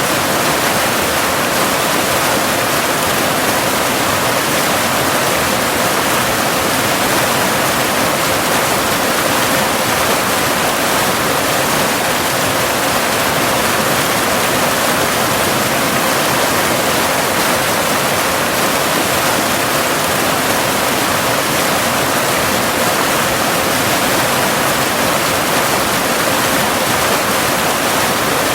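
Cascading waterfall: a steady, even rush of falling water. Underneath it runs a steady 528 Hz pure tone, part of a binaural delta-wave track.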